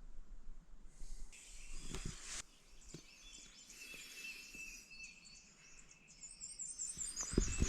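Birds calling in open woods: thin high whistles, then a quick run of repeated high chirps near the end. A brief hiss comes about a second in, and low handling thumps come at the very end.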